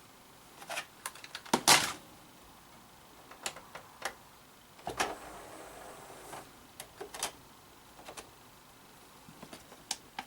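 Scattered clicks and knocks of hard plastic objects being handled and set down, with a brief scraping rustle about five seconds in.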